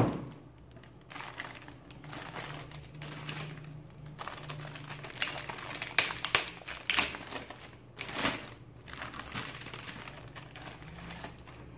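Plastic anti-static bag crinkling as a motherboard is pulled out of it: irregular rustling with louder crackles a little past the middle.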